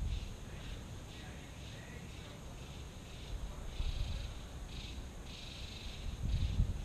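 Insects chirping in a steady high pulse about twice a second, the pulses now and then running together, over an uneven low rumble.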